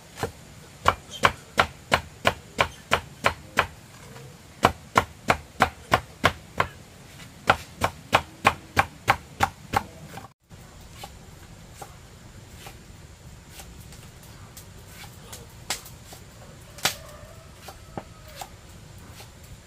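A knife chopping a green banana stalk into slices on a wooden block, about three sharp chops a second in runs with short pauses. The chopping stops about halfway through, leaving only a few scattered clicks.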